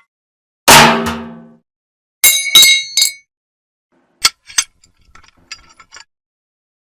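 Metal objects struck in a row of separate hits. First one heavy strike rings down over about a second. About two seconds in come three or four bright, high clinks that ring briefly, and near the end a run of light, faint metallic taps.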